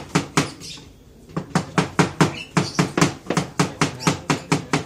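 Knife chopping fruit on a wooden cutting board: quick, even strikes, about five a second, with a short pause about a second in.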